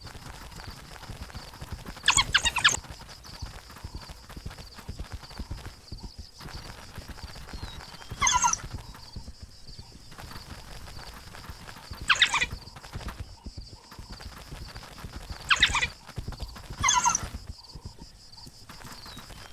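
Five short, high-pitched animal calls, each about half a second long and spaced a few seconds apart. They sound over a steady high-pitched hum and low rumbling background noise.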